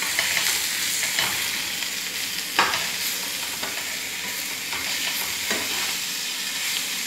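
Chicken pieces with onion and masala sizzling in a frying pan as they are stirred, with the spoon scraping the pan a few times, the sharpest scrape about two and a half seconds in.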